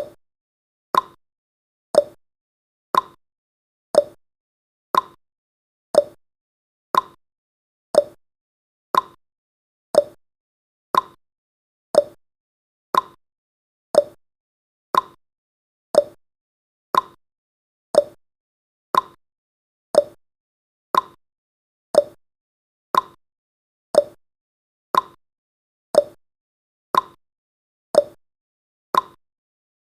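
A countdown timer's ticking sound effect: a short, sharp tick once every second, evenly spaced, with silence between the ticks.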